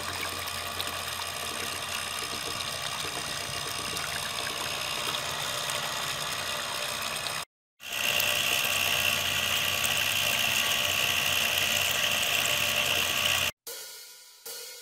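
A homemade 12 V propeller pump driven by a 775 DC motor running steadily, with water gushing out of its plastic outlet pipe; the maker calls it very smooth. The sound breaks off for a moment about halfway, comes back louder and hissier, and cuts off near the end.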